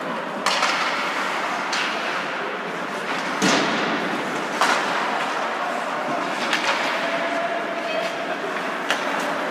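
Ice hockey play in an arena: steady rink noise broken by about half a dozen sharp knocks of sticks and puck. The loudest knocks come about three and a half and four and a half seconds in.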